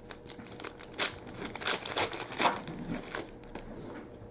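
Plastic wrapper of a trading card pack crinkling and tearing as it is opened, in a run of quick crackles.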